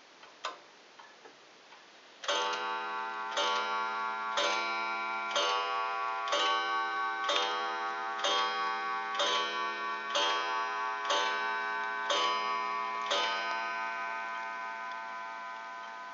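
Gustav Becker Vienna regulator wall clock ticking faintly, then striking the hour on its coiled wire gong: twelve evenly spaced strokes about a second apart for 12 o'clock, each ringing on into the next and slowly fading.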